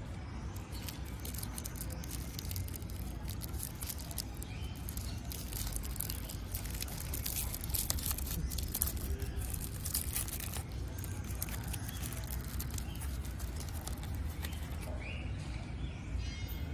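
Crinkling and crackling of a chocolate truffle's foil wrapper being unwrapped by hand, thickest about halfway through and dying away after about eleven seconds, over a steady low outdoor rumble.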